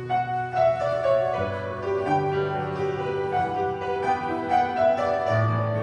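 Piano music: slow held chords over a moving bass line.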